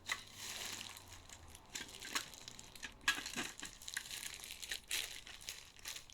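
Crinkling, rustling handling noise with a few sharp clicks, as a Swiss Army volcano kettle is picked over and turned in the hands.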